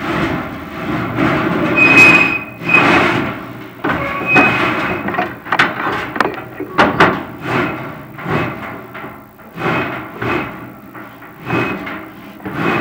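Chimney inspection camera and its cable scraping and knocking against the inside of a prefab fireplace's metal flue as the camera is lowered, in repeated rough swells with a few sharp clicks. Brief high squeaks about two and four seconds in.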